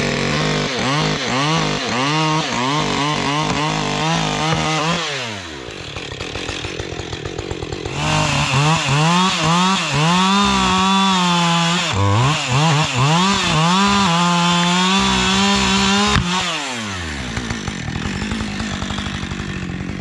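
Chainsaw cutting into a tree trunk at full throttle, its revs dipping again and again under load. It drops to idle about five seconds in, revs up and cuts again from about eight seconds, and falls back to a steady idle at about sixteen seconds.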